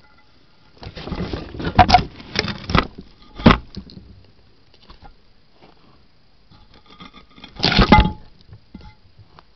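Hedgehog rustling and scrabbling among dry twigs and leaves, in crackling clicks: a bout of about three seconds starting a second in, and a shorter one near the end.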